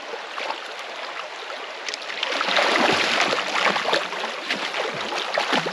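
Flowing river water rushing steadily, with splashing of someone bathing in it that grows louder about two seconds in.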